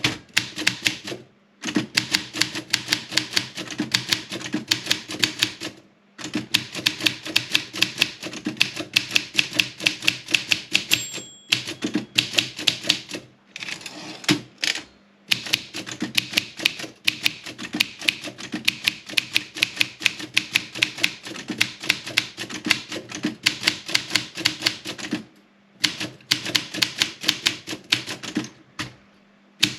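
Olympia SM 7 manual typewriter being typed on: rapid runs of sharp key strikes with several short pauses. About eleven seconds in there is a brief ringing tone, typical of the margin bell warning that the line is nearly full.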